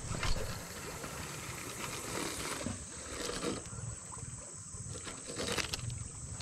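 A spinning-rod cast just after the start, the loudest moment, followed by scattered short clicks and rustles as the spinning reel and line are handled, over a steady high-pitched hum.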